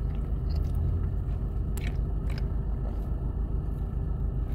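Steady low rumble inside a car's cabin, with a few short mouth clicks of someone chewing food and sipping through a straw.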